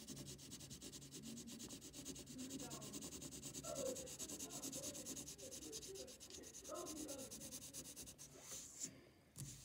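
Pencil scratching on paper in quick, even back-and-forth strokes, shading in grass. The strokes pause briefly near the end.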